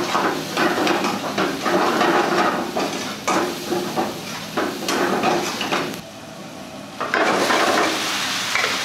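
Long steel ladle scraping and knocking against a metal kadai as thick masala is stirred and fried over a gas flame. The stirring drops to a brief lull about six seconds in, then starts again.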